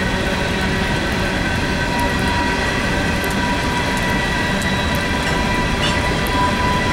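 Empty coal hopper cars of a freight train rolling past, a steady rumble of steel wheels on rail with thin, steady high tones over it.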